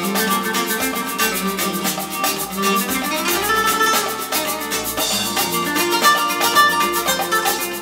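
Music played through a pair of Aurelia Magneta II bookshelf loudspeakers, picked up by a camera's built-in microphone: a track with a steady beat and pitched melodic notes.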